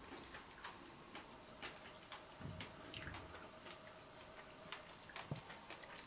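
Quiet room tone: a faint steady hum with scattered soft, irregular clicks and ticks, and a brief low rustle of movement a little after two seconds in.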